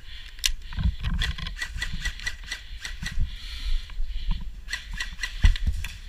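Close-quarters airsoft skirmish heard on a head-mounted camera: irregular sharp clicks and snaps, several a second, from airsoft rifle fire and knocking kit. Under them is a low rumble of movement and wind on the microphone.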